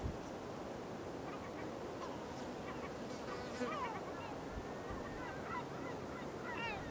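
Faint calls of distant gulls, a few short falling cries scattered mostly through the second half, over a steady outdoor hiss.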